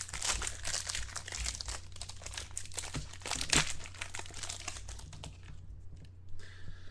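Plastic crinkling as trading cards and their packaging are handled, a dense run of crackles that thins out near the end, over a steady low electrical hum.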